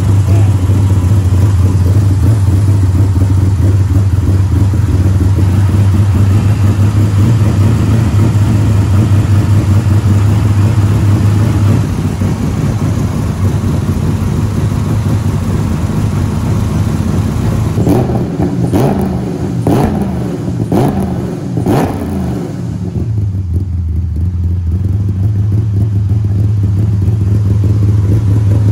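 Custom cammed 6.8-litre 40-valve Ford V10 running steadily at about 1,100 rpm on its first start. About two-thirds of the way through it is blipped several times, the revs rising and falling, then it settles back to idle.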